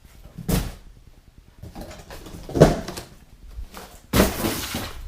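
Clunks and knocks from handling the metal parts of a roll-cart tool chest, the loudest about halfway through, then a short scraping slide near the end.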